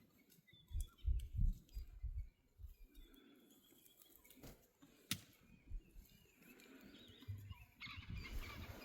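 Faint outdoor ambience: a few faint bird chirps over irregular low thuds, with one sharp click about five seconds in.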